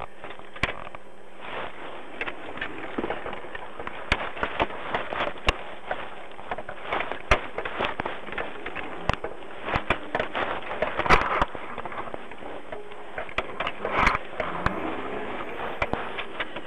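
Crackling and popping on a police car's dash-camera audio: many irregular clicks, with louder bursts about 11 and 14 seconds in.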